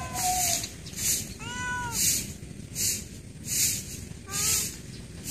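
Domestic cat meowing: the end of one meow at the start, a clear full meow about one and a half seconds in, and a shorter meow after four seconds. Behind it a high hiss pulses a little faster than once a second.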